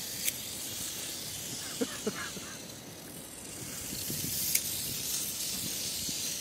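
Tamiya Mini 4WD cars' small electric motors and gears running with a high buzzing whirr, louder after about four seconds. Two sharp clicks cut in, one near the start and one about four and a half seconds in.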